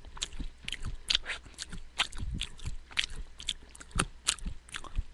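A person chewing a mouthful of soaked, sprouting uncooked beans, peas and corn, close to the mouth: irregular crisp crunches and wet mouth clicks, a few each second.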